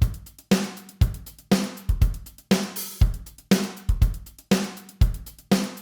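Drum loop of kick, snare and hi-hats, saturated through a band saturator plugin, with its frequency knob being turned down so the kick is saturated too. There is a strong hit about every half second, each with a low boomy ring, and light cymbal ticks in between.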